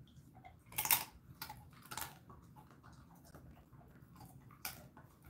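A Jindo dog chewing a dried chicken-wrapped pollock-skin treat: a few sharp crunching bites, the loudest about a second in and another near the end.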